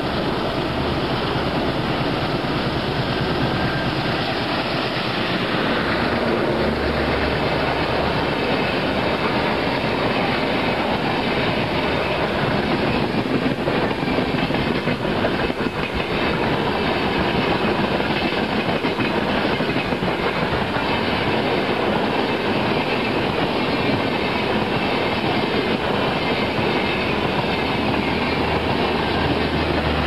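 Diesel-hauled express train passing close by, led by a WDP3A diesel locomotive working hard under power, then a long run of coaches with wheels clattering over the rail joints.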